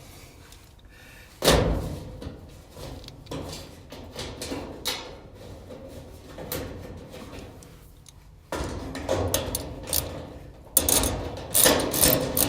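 Knocks and clatter of a clothes dryer's sheet-metal panels being shifted and handled during reassembly. A sharp knock comes about a second and a half in, and a busier run of knocks and clicks follows near the end.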